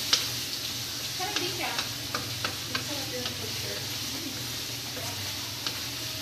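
Vegetables sizzling in a hot wok on a gas burner, stirred with a wooden spatula that scrapes and clicks against the pan again and again.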